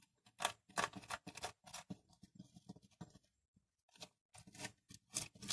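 Vermicompost being spread and levelled over the bottom of an aquarium: a run of short, faint scrapes and rustles, with a pause about three seconds in.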